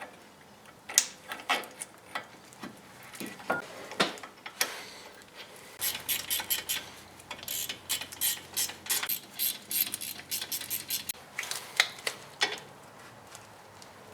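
Ratchet wrench clicking in quick runs as the brake caliper bolts are run in and tightened, with scattered metal clinks of tools and bolts before the runs start about six seconds in.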